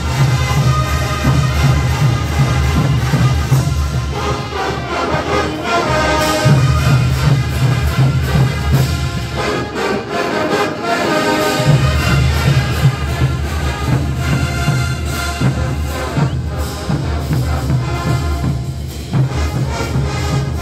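Massed brass bands playing Andean band music: sousaphones, brass and bass drums sounding together. The low bass drops out for a moment about ten seconds in, then returns.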